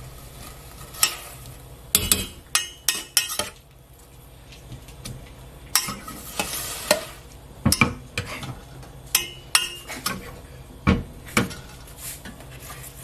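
Metal spoon stirring boiled butterbur stems in a stainless steel pot, with scattered sharp clinks and scrapes of the spoon against the steel at irregular intervals.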